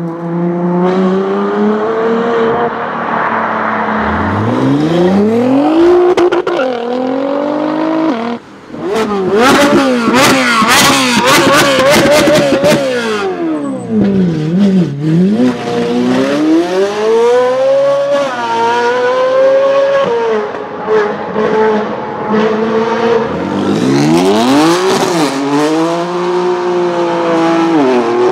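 Several high-performance car engines, one after another, revving and accelerating hard, the pitch climbing and dropping with each rev. Around the middle there is a dense run of exhaust pops and crackles.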